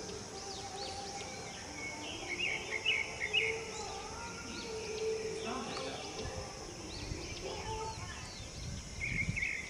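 Small birds chirping in quick runs of short high notes, about two to three seconds in and again near the end, over steady outdoor background noise.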